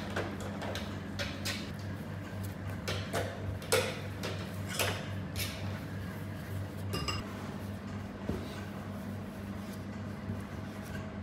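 Wooden rolling pin rolling out small rounds of samosa dough on a floured wooden table, giving irregular knocks and clicks, busiest in the first five seconds, with a brief ringing clink about seven seconds in. A steady low hum runs underneath.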